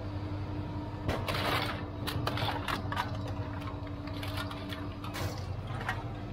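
Aluminum cans and scrap metal clattering as they are tossed by hand out of a trailer onto a scrap pile, in irregular bunches of rattles and clanks, over a steady low mechanical hum.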